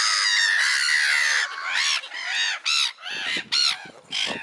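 A flock of birds calling loudly as they squabble over food: a dense chorus of overlapping calls for about a second and a half, then separate short arched squawks, several a second.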